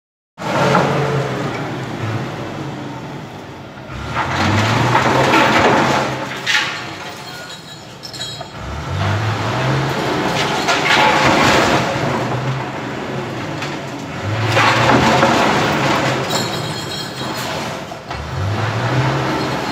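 A truck's engine revving hard in repeated surges, rising in pitch each time, as the truck is driven again and again into a bank's front to ram-raid its cash machine, with crashes of impact between the surges.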